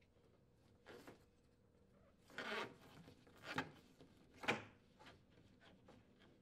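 Corrugated plastic dishwasher drain hose rubbing and scraping against the wooden cabinet wall as it is fed through a hole: a few short, faint scrapes, the longest about two and a half seconds in.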